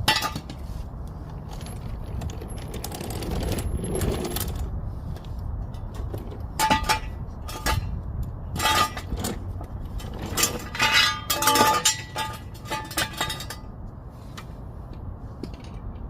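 Metal tools and parts clinking and clattering as they are handled and set down, with a run of sharp ringing clinks in the middle, the loudest about eleven to twelve seconds in.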